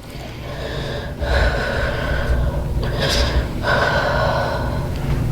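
A person breathing heavily through the nose and mouth: three long, noisy breaths, the middle one the longest.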